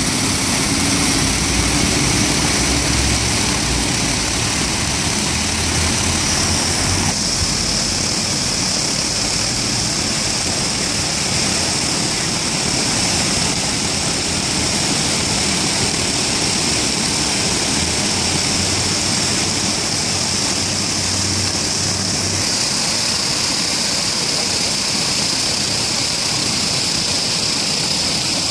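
Water from a plaza fountain spilling over its curved rim into the basin, a steady rushing splash, with a low rumble of city traffic underneath.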